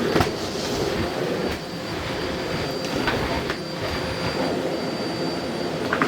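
Miele CX1 Blizzard bagless cylinder vacuum cleaner running steadily with a high whine, with a few clicks and knocks as the floor tool is worked over the carpet.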